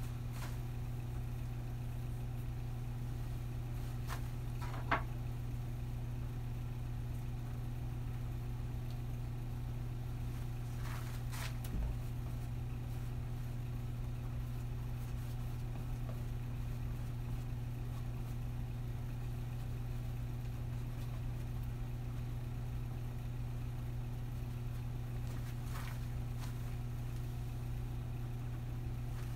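A steady low hum, with a few faint, short clicks scattered through it.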